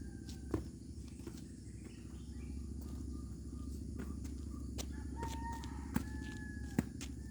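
Faint drawn-out bird calls, held tones in the second half, over a steady low rumble, with a couple of sharp knocks.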